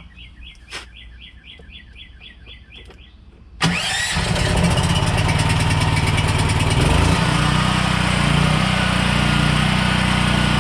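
Harbor Freight Predator 8750-watt generator's engine starting cold with the choke set. It catches suddenly about a third of the way in, then keeps running loud and steady.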